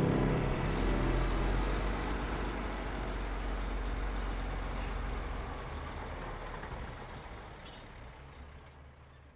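Heavy earthmoving machinery running on a site-grading job: a steady low engine rumble with noise that gradually fades out.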